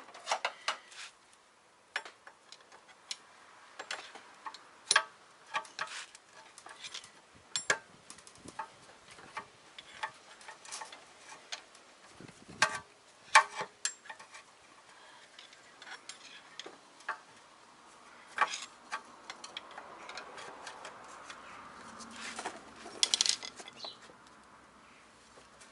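Irregular metallic clicks and clinks as parking-brake shoes, springs and the barrel adjuster are handled and pried with tools, with a quick cluster of clinks near the end.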